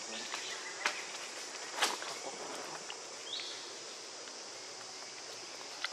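Outdoor ambience among trees and stone ruins: a steady hiss, two sharp clicks in the first two seconds and a short high chirp about halfway through.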